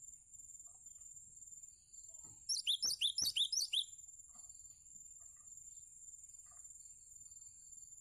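Cinereous tit (gelatik batu) giving a quick burst of about eight sharp, rising chirps about two and a half seconds in, lasting just over a second.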